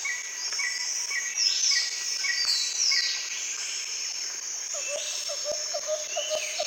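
Tropical jungle ambience of insects and birds calling: shrill high calls, repeated falling notes and short chirps, joined about five seconds in by a lower note repeated about four times a second.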